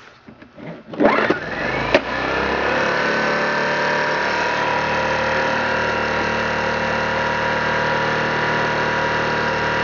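Small engine of a Honeywell 1000-watt inverter generator starting about a second in, rising in pitch, then running steadily. The engine runs well; the fault is in the inverter, which gives no output.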